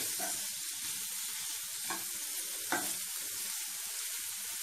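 Chicken pieces and sliced onion sizzling in hot oil in a frying pan, stir-fried with a spatula that scrapes against the pan a few times.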